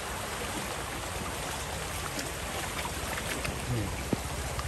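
Steady rush of fast-flowing stream water, with a few faint knocks and splashes near the middle and end.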